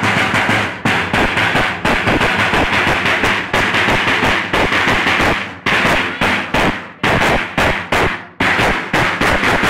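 Several large double-headed drums beaten hard with sticks in a fast, dense, driving rhythm: the drumming of a Romanian bear-dance (urs) troupe, broken by a few brief gaps past the middle.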